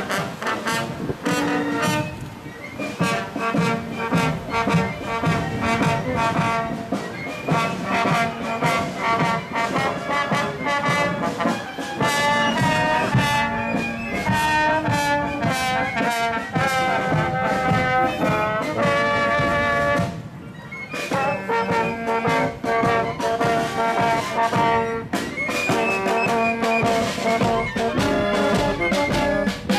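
Marching band playing a march: brass and saxophones over a steady beat of bass drum and snare drum, with a short break about two-thirds of the way through before the playing picks up again.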